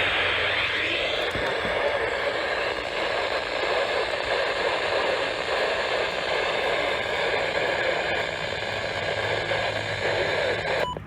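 Steady static hiss from a weather radio receiver with no clear signal, cutting off abruptly near the end.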